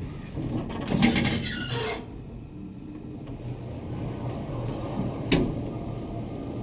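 Otis traction elevator in operation: a mechanical rattle about a second in, then a steady low hum from the car, and one sharp click near the five-second mark.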